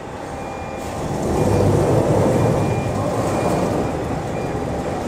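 Sliding guard doors of a flatbed CNC lathe being pushed open by hand, a rumbling slide of the doors along their rails. It builds about a second in and carries on for several seconds.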